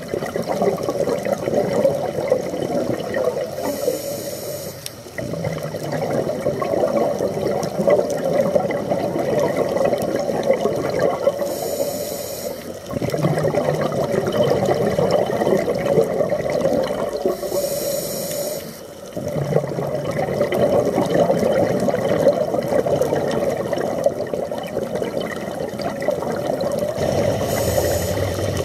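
Scuba diver breathing through a regulator underwater: long stretches of bubbling exhalation, broken four times by a short hiss of inhalation, about one breath every seven to eight seconds.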